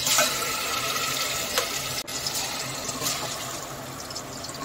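Wet marinated chicken pieces sizzling as they drop into hot oil in a steel pot. The hiss starts suddenly, is strongest for the first couple of seconds and then eases off, with a few light clicks of a steel ladle against the plate.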